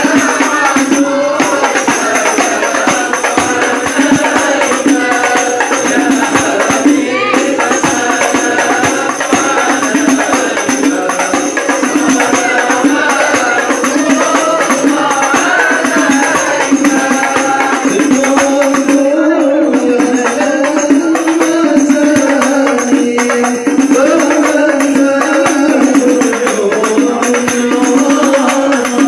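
A group of men sing devotional sholawat together, accompanied by hand-beaten rebana frame drums playing without a break.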